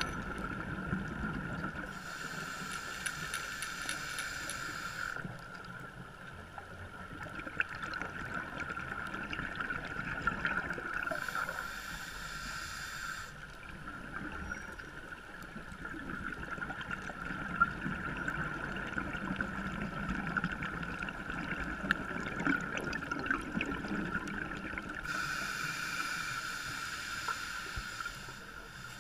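Underwater sound on a scuba dive: three stretches of hissing, gurgling regulator exhaust bubbles, about 2, 11 and 25 seconds in, each lasting two to three seconds, over a steady whine and faint scattered clicks.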